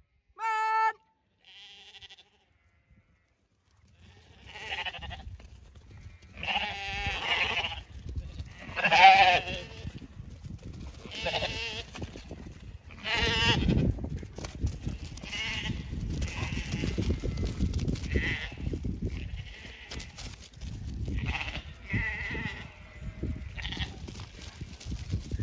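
Zwartbles sheep bleating: one clear bleat about a second in, then from about four seconds in a flock calling again and again, a bleat every second or two.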